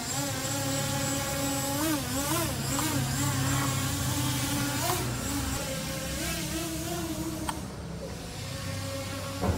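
Multilaser Falcon 4K GPS quadcopter drone in flight, its propellers giving a steady buzzing whine whose pitch rises and dips now and then as the throttle changes.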